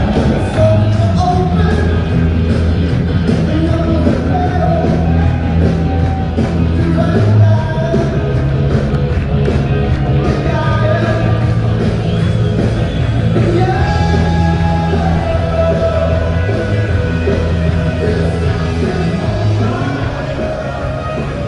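Loud rock music with a singing voice over a steady bass line.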